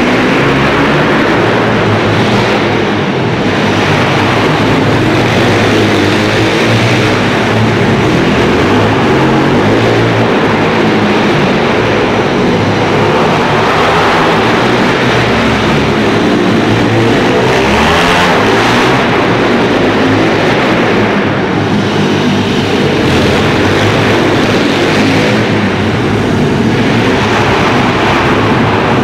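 Pit bike engine running loud and continuously, revving up and down with its pitch rising and falling over and over.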